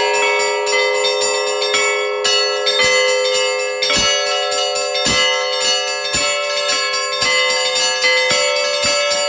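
Orthodox church bells ringing together: quick, repeated strokes of the smaller bells over the sustained ring of larger ones, with a heavier stroke about four seconds in.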